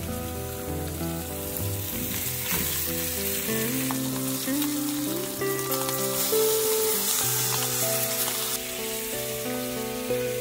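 Egg-coated fish pieces frying in a hot pan, a steady sizzle.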